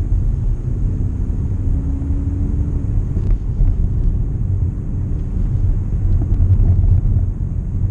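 Low, steady rumble of road and engine noise heard inside the cabin of a Skoda Superb creeping along in traffic, with a faint engine note rising briefly about two seconds in.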